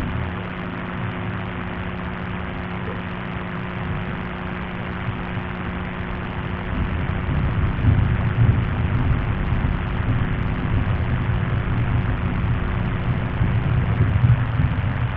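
Steady low hum with a fainter overtone above it, over constant rumbling noise; the hum stops near the end. It is presented as an anomalous 'humbuzz' recorded on the ocean floor.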